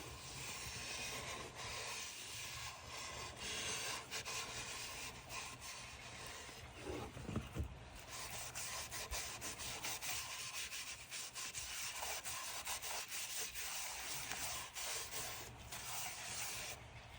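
Sandpaper rubbing over a beetle-kill pine bowl in repeated strokes, a steady hiss broken by short pauses between passes.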